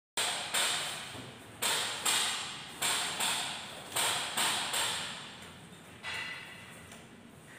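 About ten sharp clacks, mostly in quick pairs, each ringing out briefly. The last one comes about six seconds in.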